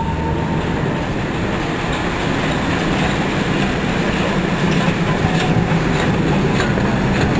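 Diesel engine of a Botchan Ressha replica steam locomotive running as the train draws near: a steady low drone that grows a little louder. Near the end come a few wheel clicks over the rail joints.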